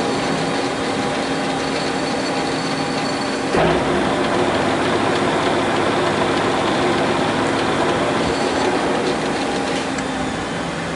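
Monarch 612 engine lathe running under power, its headstock gearing giving a steady machine hum with a few steady tones. About three and a half seconds in there is a sudden clunk, and after it the machine runs with a louder low rumble.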